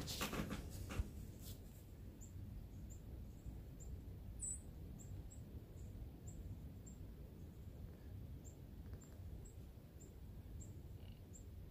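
A small bird calling with short, very high chirps, about two a second, over a faint low outdoor rumble, with a few handling clicks in the first second or so.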